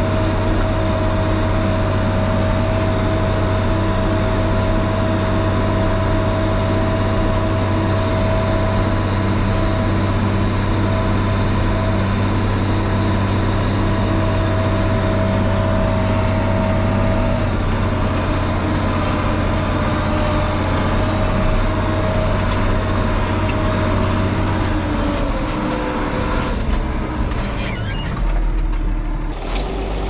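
Old Ford farm tractor's diesel engine running steadily under way, heard from inside the cab. About 25 seconds in, the engine note drops.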